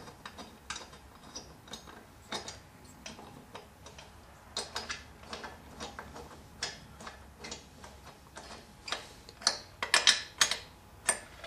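A socket ratchet clicking in irregular spurts as cylinder head bolts are run in snug, not yet torqued. The clicks come thickest and loudest near the end.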